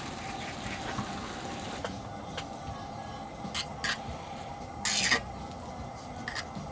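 Scattered light clicks and knocks of cookware or utensils being handled, about half a dozen, the loudest about five seconds in, over a steady faint hum.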